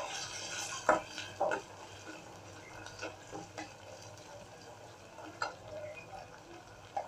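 Plastic spatula stirring and scraping sliced onions and ginger-garlic paste through hot oil in a stainless steel karahi, with a light sizzle in the first second and a few sharp knocks of the spatula against the pan.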